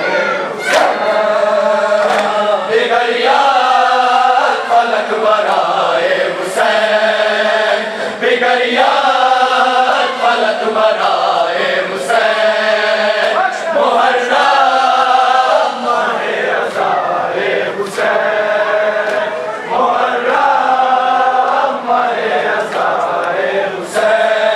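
Crowd of men chanting a Muharram noha together in a repeating lament, each sung phrase lasting a couple of seconds. Now and then a sharp slap cuts through, the hand-on-chest beating of matam.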